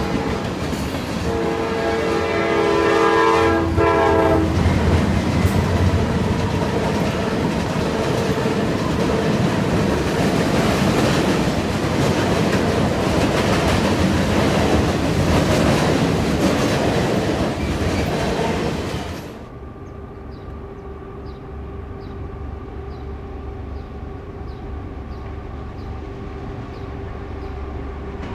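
Freight train of tank cars and covered hoppers rolling past at close range, its wheels clattering over the rail joints, with a multi-note locomotive horn sounding for about three seconds near the start. About two-thirds of the way through, the sound drops to a quieter, distant locomotive approaching with a steady hum.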